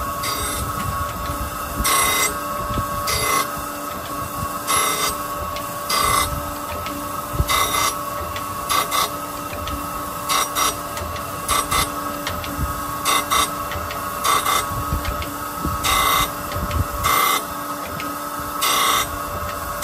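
Okamoto Accugar 124N hydraulic surface grinder running with a steady hum, its wheel grinding a metal plate in short bursts about every second and a half as the hydraulic table carries the plate back and forth under the wheel.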